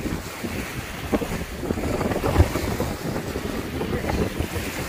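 Wind buffeting the microphone on an open shoreline, a rough, low rumble, with reservoir water lapping on the rocks beneath it. One sharper bump comes about halfway through.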